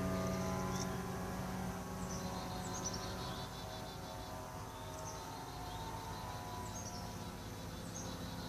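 Low, steady droning hum made of several stacked tones, fading slightly, of the kind reported as a strange sound in the sky, with small birds chirping over it.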